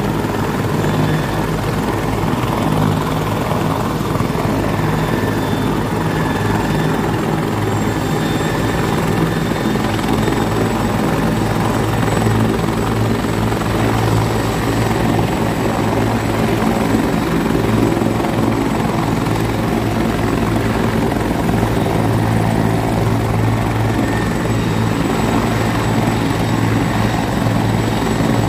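Helicopter sitting on the pad with its turbine engines and main rotor running: a loud, steady rotor beat with a thin, high, steady turbine whine above it.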